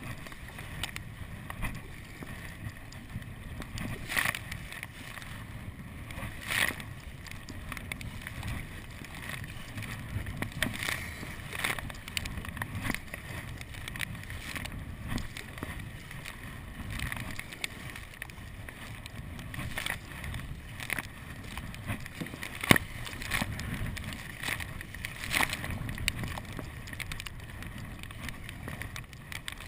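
Choppy water splashing against a kayak's hull and deck as it is paddled through waves, with sharp slaps of spray every second or two, the loudest about three-quarters through.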